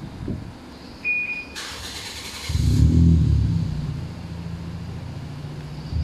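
A short electronic beep from the aftermarket smart alarm acknowledging the remote-start command, then the Toyota Vios NCP93's starter cranks for about a second and the engine catches about two and a half seconds in, flares briefly and settles into a steady idle.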